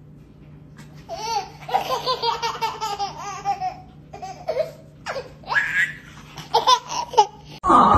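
A toddler laughing in high-pitched giggling bursts, the first beginning about a second in and more coming several seconds later, over a faint steady low hum.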